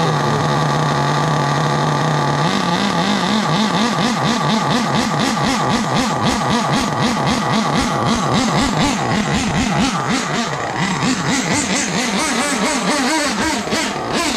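Dynamite .28 big block two-stroke nitro engine of an RC rally car running, steady at first, then from about two and a half seconds in its revs rise and fall over and over as the car is driven.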